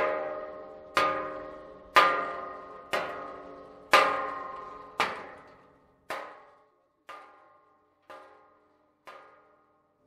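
Rubber mallet giving medium taps to the top channel of an Ameristar Impasse rigid metal fence, about one strike a second, each tap followed by a short metallic ring; the last four taps are fainter as the tapping moves farther down the fence. These are calibration taps that set the noise threshold for the intrusion-detection sensor cable inside the channel.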